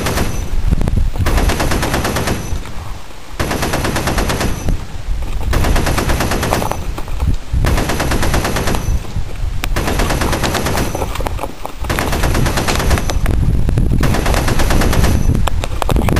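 Simulated machine-gun fire: rapid-fire bursts about a second long, repeating roughly every two seconds.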